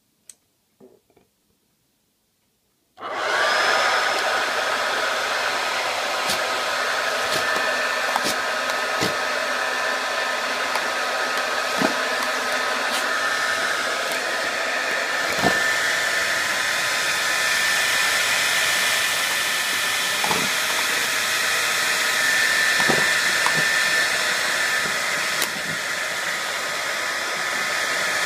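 Hairdryer switched on about three seconds in, then blowing steadily on its cold setting, with scattered short clicks and knocks over the steady whir.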